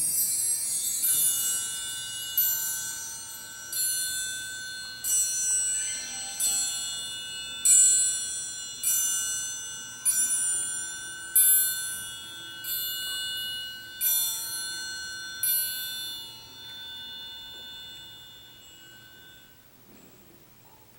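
Tone chimes played in a slow, even line: about a dozen notes struck roughly one every 1.3 seconds, each ringing on under the next. A high, falling shimmer of ringing opens the passage. After the last note, about three-quarters of the way in, the chimes decay to near quiet.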